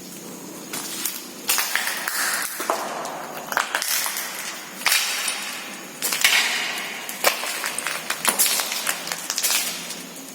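Footsteps crunching over broken debris and rubble on the floor, an irregular crunch with sharp clicks roughly once a second.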